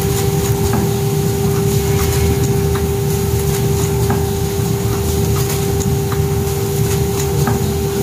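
Automatic bagging machine running: a steady mechanical hum with a constant tone over a low rumble, and irregular light clicks from its moving parts.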